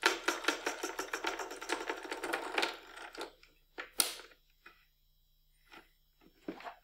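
Batteries being pressed into the plastic battery compartment of a Soehnle Professional 8320 baby scale: a quick run of small clicks and rattles for nearly three seconds. About four seconds in comes a single sharp click as the compartment is shut, then a few light knocks of the plastic housing being handled.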